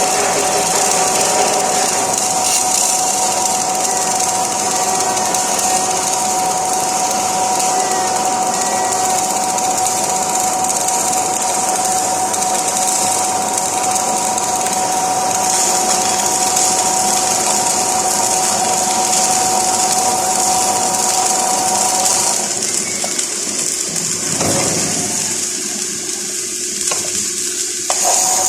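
Flux-core wire welder running: a continuous crackling hiss of the arc, with a steady whine under it that stops a little over twenty seconds in.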